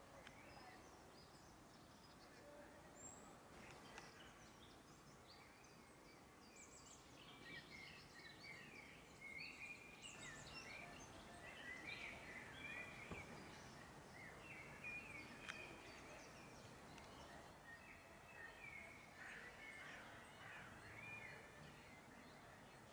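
Faint songbird chorus: many short chirps and whistled phrases overlapping, sparse at first and busier from about a third of the way in, over a low steady background noise.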